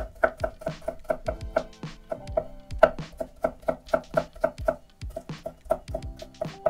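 Background music with a quick, steady plucked beat, about four notes a second.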